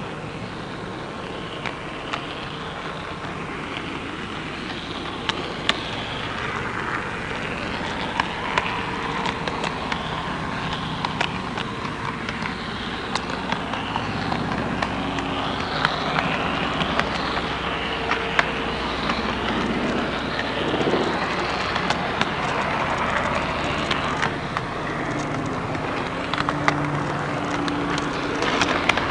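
HO-scale (16番 gauge, 1/80) model train running along the track, heard from a camera riding on it: a steady mechanical running noise with a whine that rises and falls, and many scattered sharp clicks.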